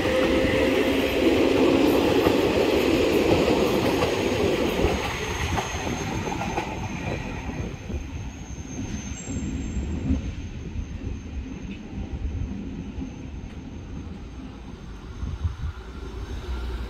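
Appenzeller Bahnen metre-gauge Walzer train with added coaches pulling out and rolling past close by, wheels rumbling on the rails; loudest in the first few seconds, it fades steadily as the train draws away.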